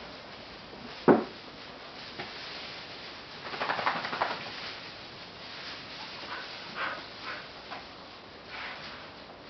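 Australian Shepherd puppies and an adult dog scuffling and moving through loose hay on a tiled floor. A short sharp sound about a second in is the loudest event, and a burst of rustling comes around four seconds in, with a few small scuffles after.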